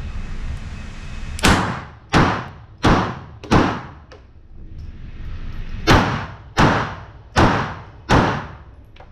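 Pistol shots fired in two strings: four quick shots about two-thirds of a second apart, a pause of about two seconds, then four more at the same pace, each with a short echo.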